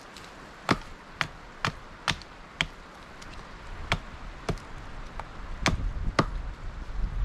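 Axe chopping wood: a run of five sharp blows about half a second apart, then after a short pause another group of blows.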